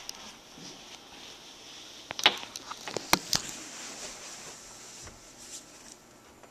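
A quick cluster of sharp clicks and knocks two to three and a half seconds in, then a faint hiss that fades: handling noise as the camera is moved and set in place.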